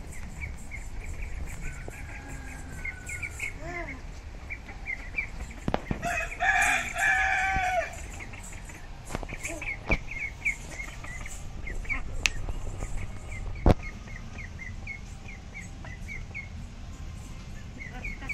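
Yard poultry: a rooster crows once, about six seconds in, lasting about a second and a half, over a steady run of small birds' chirps. Two sharp clicks come later.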